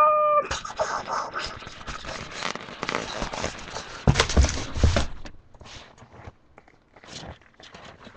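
Rustling and scraping of things being handled, with a few sharp knocks about four seconds in, then quieter scattered handling noises. A short pitched tone sounds at the very start.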